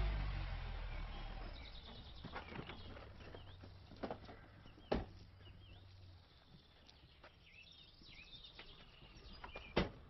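An estate car's engine idling low after pulling up, then switched off about six seconds in. Car doors thud shut about five seconds in and again near the end, with birds chirping throughout.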